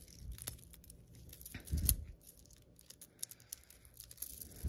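Soft handling noises: crinkling plastic packaging and small clicks of beaded bracelets as they are slipped onto a wrist, with one louder rustle about two seconds in.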